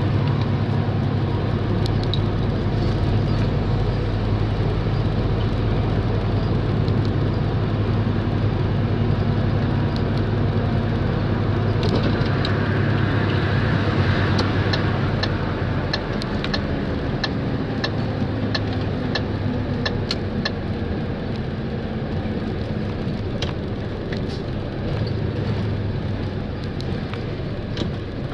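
Engine and road noise heard from inside a moving vehicle: a steady low engine drone under tyre noise, with scattered light clicks and rattles. The engine note drops a little over halfway through.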